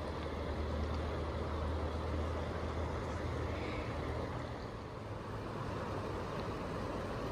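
Steady rushing of a river's current, with a low rumble underneath.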